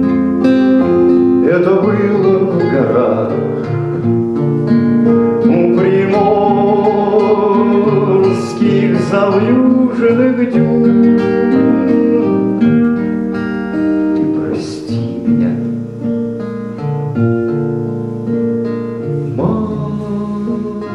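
Acoustic guitar playing a bard song with a man singing over it in separate phrases, the guitar carrying on alone between them.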